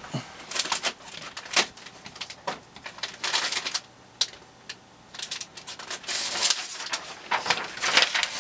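Handling noise of someone rummaging for a sheet of paper: irregular clicks and knocks of small objects with paper rustling, quieter in the middle and busier near the end.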